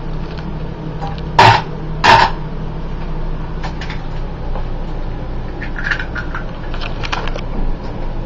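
An egg rapped twice against the rim of a stainless steel frying pan to crack it: two sharp knocks less than a second apart, followed by a few faint clicks as the shell is handled.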